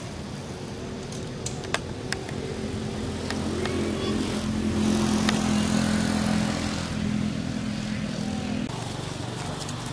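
A motor vehicle's engine running steadily, growing louder toward the middle and then cutting off abruptly near the end. A few sharp clicks sound over it.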